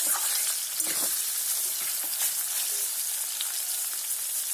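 Sliced onions frying in hot oil in a kadai with bay leaves and green chillies: a steady sizzle, with a few short scrapes of a spatula stirring them. The onions are in their early, still-pale stage of being fried until brown.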